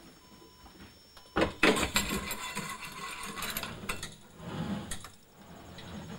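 Galvanized sheet-metal duct sections clattering and scraping as they are handled and fitted together by hand. A loud metallic clatter comes about a second and a half in, followed by more rattling and scraping.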